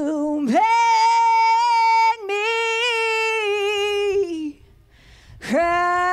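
A woman singing alone into a microphone, with little or no band behind her: long held notes that slide in pitch, one line breaking off briefly about 2 s in, trailing off downward after about 4 s, and a new held note rising in near the end.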